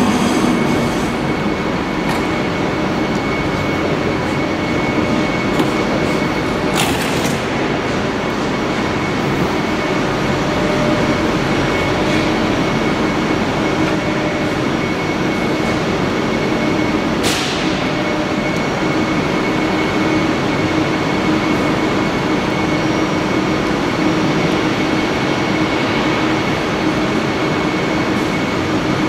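Steady train noise beside a DB regional train of red passenger coaches: a constant rumble with a faint steady high whine. Two brief sharp sounds come about 7 and 17 seconds in.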